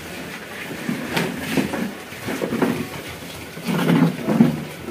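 A person's voice in several short vocal bursts, loudest about four seconds in.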